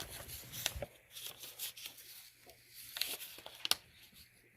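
Hands rummaging through a box of packing: scattered rustling and a few sharp clicks and taps, busiest in the first second and quieter later.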